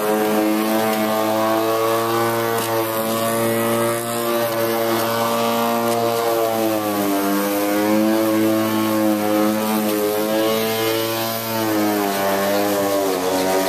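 Black & Decker cordless electric mulching lawn mower running as it is pushed across the grass, a steady motor-and-blade hum whose pitch dips and recovers a few times.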